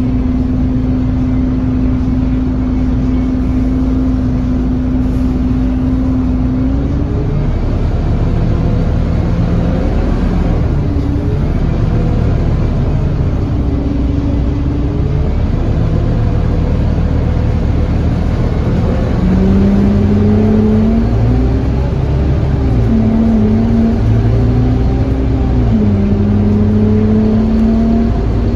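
Scania N230UD OmniCity double-decker bus's five-cylinder diesel engine heard from inside the passenger saloon. It holds a steady note for about the first seven seconds, then pulls hard, its pitch rising and dropping back through gear changes.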